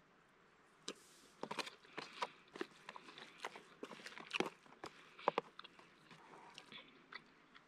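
Person eating: chewing a mouthful of food, with irregular soft crunches and clicks.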